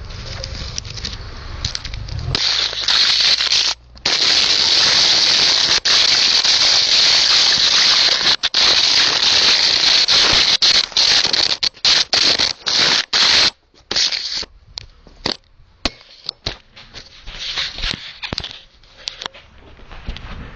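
Loud, harsh crackling hiss that drops out abruptly several times, then breaks up into scattered crackles and pops in the last several seconds.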